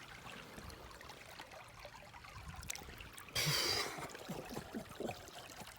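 Shallow creek water trickling over a rocky stream bed, with one louder, brief rushing noise about halfway through.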